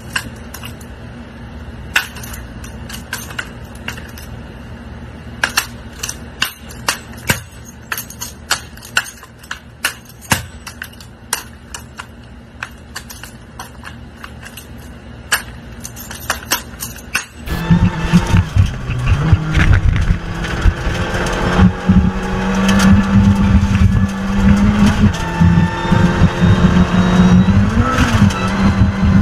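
A long irregular run of sharp clicks or snaps over a quiet background, then, after a sudden cut about two-thirds of the way in, a rally car engine heard from inside the cockpit, running hard at high revs over a dirt track with its pitch rising and falling.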